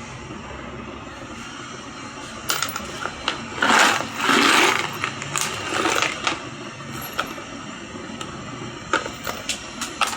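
Metallic clinks, taps and scraping from metal parts being handled and fitted, loudest about four seconds in, with a few sharp clicks near the end, over a steady background noise.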